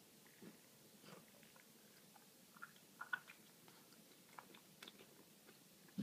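Faint, scattered mouth clicks and smacks from a pet between coughing fits, clustered about three seconds in and again near five seconds, against a quiet room.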